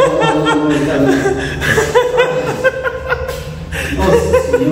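A person laughing in a run of short, quickly repeated chuckles, with a fresh burst of laughter near the end.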